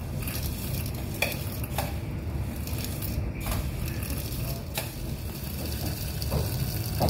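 Coriander seeds scraped with a steel slotted spoon off a steel plate and poured into a plastic mixer-grinder jar: a steady rustling hiss of sliding seeds with a few sharp clicks of metal and seeds striking.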